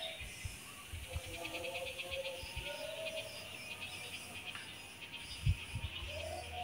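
Outdoor ambience: a rapid, high pulsing trill, typical of an insect, from about a second in for a few seconds, with a few clear whistled tones lower down and scattered low bumps.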